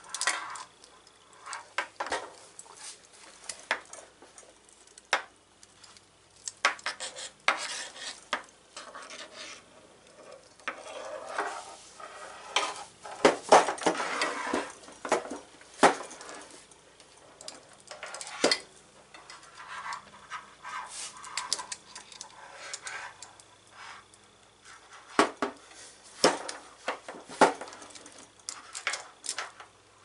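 Metal clicks, clinks and scraping as a hand crimper is handled and squeezed to crimp a lug onto a battery cable, with the tool and terminal knocking on a table. The loudest stretch of scraping and sharp clicks comes about halfway through.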